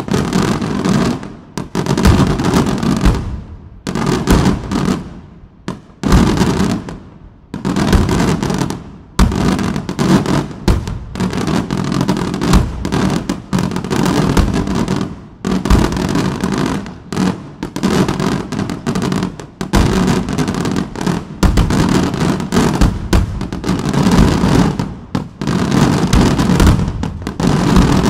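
Daytime aerial fireworks going off in a rapid, dense barrage of bangs and crackling reports, with a few short lulls in the first ten seconds or so before it runs on without a break.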